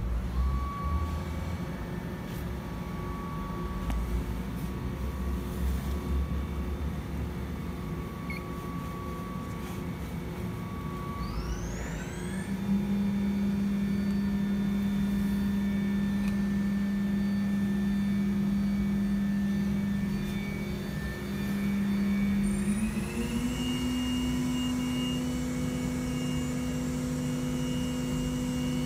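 Electric motor running with a steady whine. Its pitch glides up to a higher speed about 12 s in, and again near 23 s, then holds steady.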